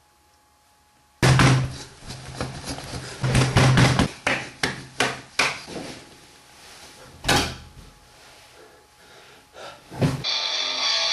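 A sudden burst of loud, irregular knocks and thumps, about a dozen hits over a few seconds, thinning to single bangs. Music starts near the end.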